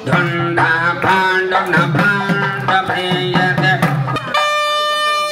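Music: a pitched melody over a regular beat, with a steady held tone coming in about four seconds in.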